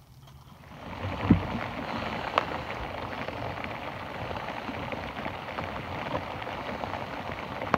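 Crinkly rustling of a nylon sleeping pad (Insulated Static V Recon) being handled right against the phone's microphone, starting under a second in, with a dull knock shortly after.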